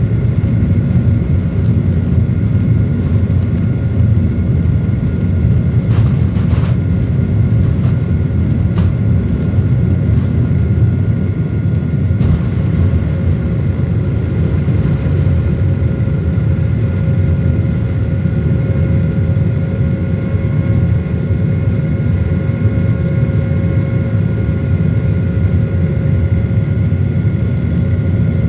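Inside the cabin of a Boeing 737-800 at takeoff thrust through lift-off and initial climb: a steady, loud low rumble from the CFM56-7B engines with a thin steady whine over it, and a few brief knocks in the first half.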